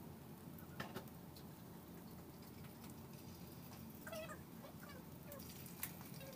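A few faint, short animal calls that bend in pitch about four seconds in, over light clicks and low kitchen room noise.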